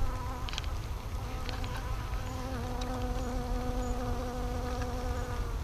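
A very large bee flying close by: a steady droning buzz that holds its pitch, dipping slightly partway through, and fades out near the end.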